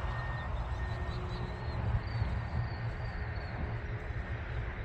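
Wind buffeting the microphone with a steady low rumble, and over it the faint whine of an electric RC plane's motor and propeller in flight, drifting slightly in pitch.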